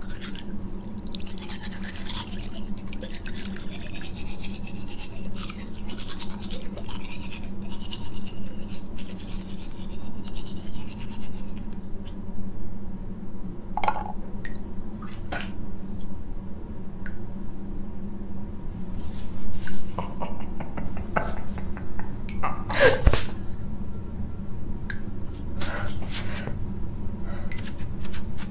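Bathroom sink sounds: a scrubbing, watery stretch through the first dozen seconds, then scattered clinks and knocks of small things handled at the sink, over a low steady hum.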